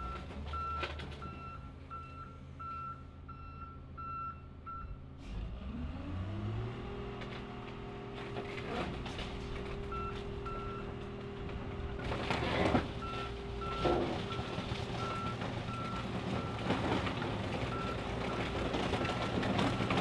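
Wheel loader's backup alarm beeping in a steady rhythm, pausing for a few seconds and then starting again, over its diesel engine, which revs up about five seconds in and holds there. A few sharp metal clanks sound past the middle.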